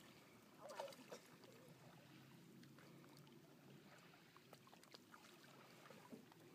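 Near silence: faint lapping of lake water, with a short faint voice about a second in.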